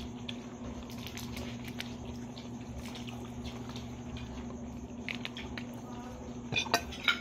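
Small clicks, taps and soft squishes of people eating by hand at a table, over a steady low electrical hum. Two sharper clicks come near the end.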